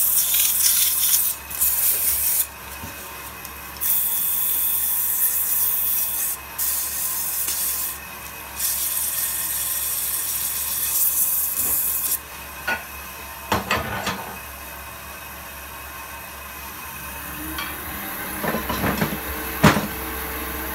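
320-grit sandpaper hissing against a wooden goblet spinning on a woodturning lathe, coming and going in spells over the lathe's steady motor hum. After about twelve seconds the sanding stops, leaving the lathe hum and a few sharp knocks.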